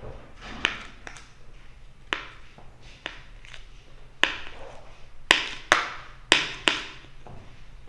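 A spoon tapping and knocking against the container while mixing clear slime that is still sticky: about eight sharp, uneven taps, coming closer together in the second half.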